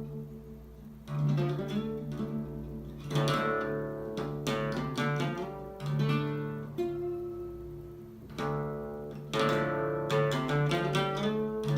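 Solo acoustic guitar (violão) playing a slow instrumental piece: ringing bass notes and plucked melody, broken by bursts of quickly strummed chords about three seconds in, around five seconds, and again near the end.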